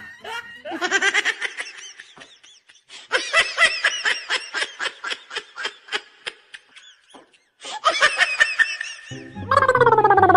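High-pitched laughter in rapid bursts that stops and restarts, cutting to silence for a moment. Near the end, music comes in with a low beat and a falling, sliding comic tune.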